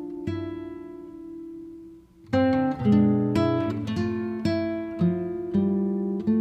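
Acoustic guitar music: plucked notes and chords ring out and fade, with a brief pause about two seconds in before the playing resumes.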